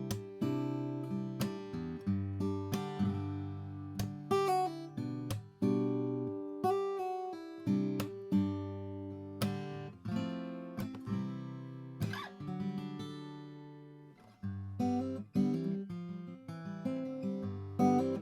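Atkin L36 acoustic guitar, a double-O body with a Sitka spruce top and mahogany back and sides, strung with phosphor bronze strings, played as a solo. Picked chords and single notes ring out. About twelve seconds in, one chord is left to fade for a couple of seconds before the playing picks up again.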